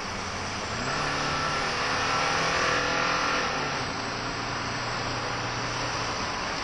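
Car engine heard from inside the cabin as the car accelerates, over a steady hiss of road and wind noise; the engine note climbs, then drops about halfway through.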